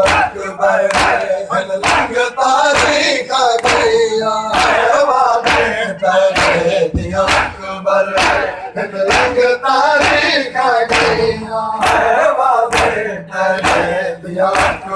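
A crowd of men doing matam, striking their chests in unison about twice a second while chanting a noha together in chorus.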